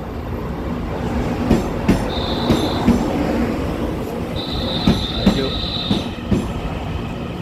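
EMU900 electric multiple unit running past along the platform: a steady rumble of wheels on rail with a few knocks over rail joints, and a high-pitched wheel squeal that sounds briefly near two seconds in and again from about four and a half to six seconds.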